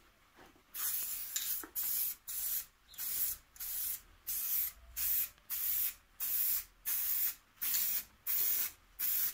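Aerosol spray-paint can hissing in short bursts as paint is sprayed on: a longer first burst, then short ones at about two a second.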